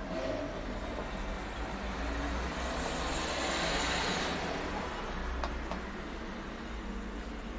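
A road vehicle passing outside: a smooth rushing hiss that swells to a peak about halfway through and then fades away, with a couple of faint clicks after the peak.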